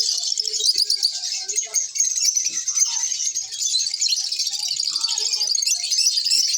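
Lovebirds chattering: a dense, unbroken stream of rapid high-pitched chirps.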